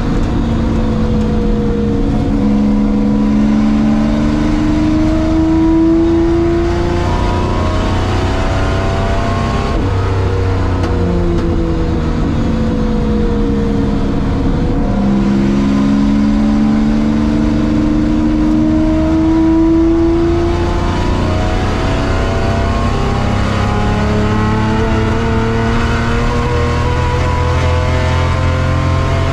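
A Jaguar XJS race car's worked V12 engine, heard from inside the cockpit while lapping hard. The revs climb in two long pulls and drop back in between as the car slows for corners.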